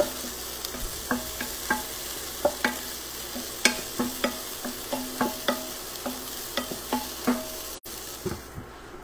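Wooden spoon stirring food in a pot, knocking against the pot two or three times a second over a steady frying sizzle as the pieces brown. Near the end the lid goes back on and the sizzle turns muffled.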